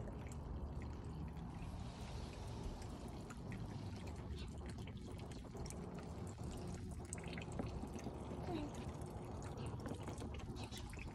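Water trickling off the front edge of a stone on a backyard fountain and dripping into the pond below. It makes a continuous run of many small drips over a steady low wash.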